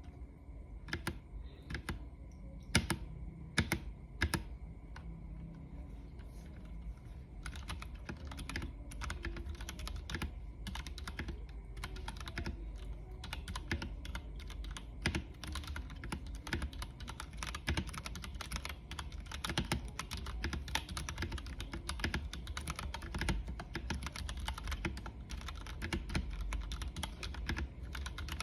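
DareU EK871 mechanical keyboard with brown switches being typed on: a few separate keystrokes at first, then from about seven seconds in, fast continuous typing.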